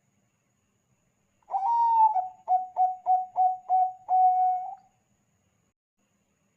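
Zebra dove (Thai-bred perkutut bangkok) singing one cooing phrase about a second and a half in: a longer opening coo, a run of five short, quick coos, and a longer closing coo.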